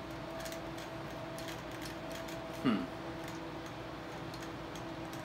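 Light clicks and ticks of a plastic phone clamp being turned and adjusted on top of a tripod, over a steady background hum. About halfway through, a brief sound falls sharply in pitch.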